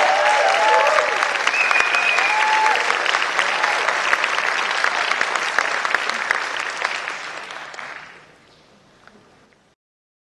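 Audience applauding and cheering, with shouted whoops at the start and a high whistle about two seconds in. The applause fades out about eight seconds in.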